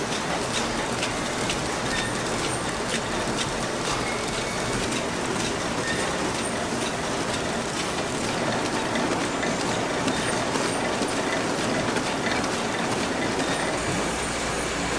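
Ice-cream-bar wrapping machine running at speed: a steady mechanical whir of rollers and wrapper film with fast, irregular ticking. A lower steady hum joins near the end.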